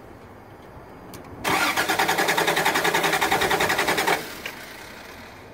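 Starter cranking a Toyota pickup's 3.0-litre engine for about three seconds in a fast, even rhythm, and the engine never catches. It is a crank-no-start with no spark and no injector pulse.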